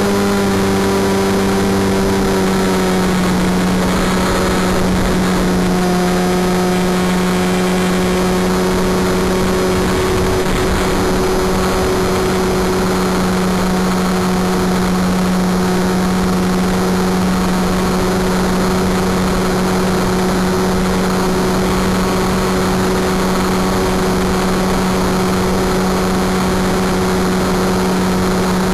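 Wing Dragon 4 RC plane's motor and propeller droning steadily in flight, with wind hiss; the pitch drops a little about two to three seconds in and then holds.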